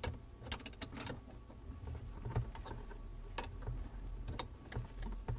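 Light, irregular metallic clicks and taps of a 5/8-inch wrench being worked and repositioned on a faucet supply-line nut as it is snugged down.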